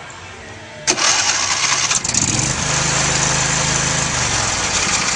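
John Deere riding lawn mower engine starting about a second in, with a sudden loud catch, then running steadily.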